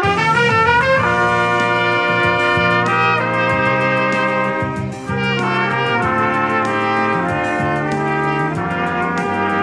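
Three trumpets playing a pop melody in harmony over a karaoke backing track. A quick rising run leads into held notes sounding together as chords, with a brief dip near the middle.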